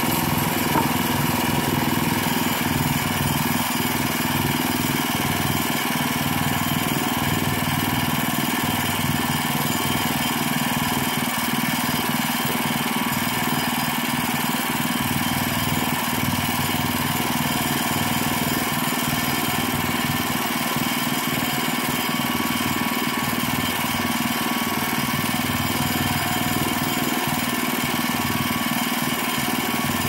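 Small gasoline engine of a portable bandsaw sawmill running steadily at an even speed.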